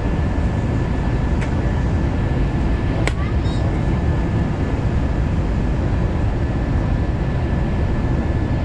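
Airliner cabin noise on the runway just after landing: a steady rumble of engines and rolling wheels with a faint steady whine. Two short sharp clicks come about a second and a half and three seconds in.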